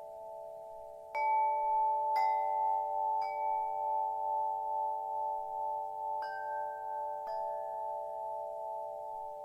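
Wind chime ringing: about five strikes, three a second apart and then two more after a pause. Each adds a new note that rings on over a steady chord of earlier notes.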